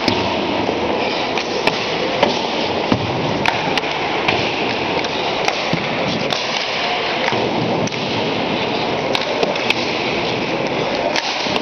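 Hockey practice on an ice rink: sharp cracks of sticks hitting pucks and pucks striking pads, the net or the boards, about a dozen spread irregularly over steady rink noise.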